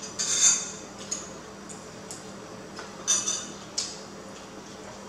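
Spoon and fork clinking and scraping against dinner plates in a few short bursts, the loudest about half a second in and another about three seconds in.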